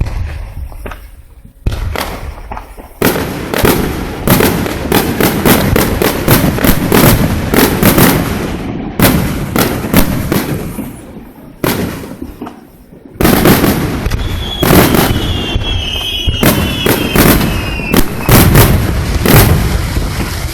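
Fireworks going off in rapid, dense volleys of sharp cracks and booms, with a short lull about two-thirds of the way through before they resume. A brief falling whistle sounds just after they resume.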